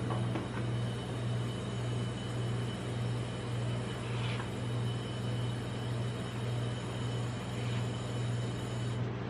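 Steady low hum of the rolled-ice-cream cold plate's refrigeration unit running, with a faint scrape of a metal spatula scoring the frozen ice cream sheet about four seconds in.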